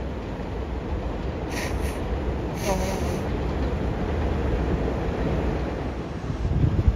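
R188 subway train running through the station with a steady low rumble, and two brief high hisses about a second apart near the start.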